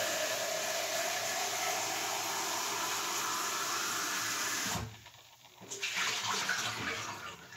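Water running from a kitchen tap into the sink, shut off about five seconds in; then light clatter of things being handled in the sink.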